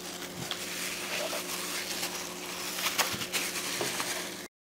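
Plastic-gloved hand rubbing seasoning into raw turkey pieces on a metal sheet pan: soft rustling and crinkling with a few light ticks, over a steady low hum. The sound cuts out abruptly near the end.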